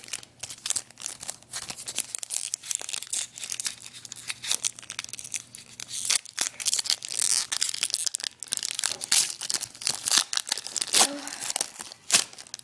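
Wrapper of a Wacky Packages sticker pack being torn open and crinkled by hand: a dense run of irregular sharp crackles and tearing.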